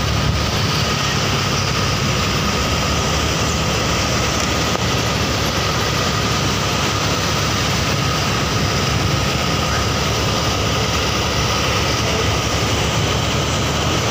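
Steady driving noise of a vehicle on the road: a low engine drone with tyre and wind noise, and a faint steady high whine above it.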